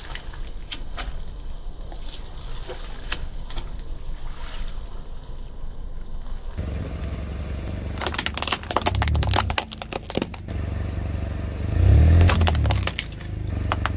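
Faint scattered crinkles from a crushed drink carton under a car tyre. Then a car's engine hums low and steady as its tyre rolls onto a plastic TV remote control, with two loud bursts of cracking and crunching plastic, the second the louder.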